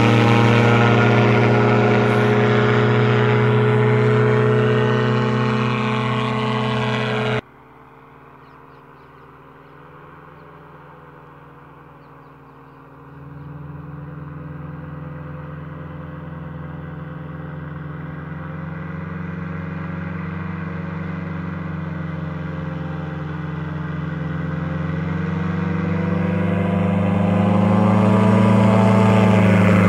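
Buckeye powered parachute's engine and pusher propeller running steadily as the craft passes close overhead. The sound drops away sharply about seven seconds in to a faint, distant drone, which grows steadily louder as the craft comes back low over the field.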